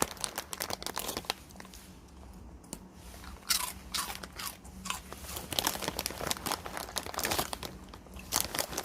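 A dog chewing Saeukkang shrimp crackers, irregular sharp crunches in quick clusters that come thickest in the second half.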